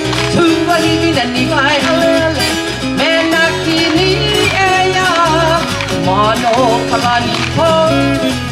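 Music: a sung melody over guitar and a steady repeating bass line.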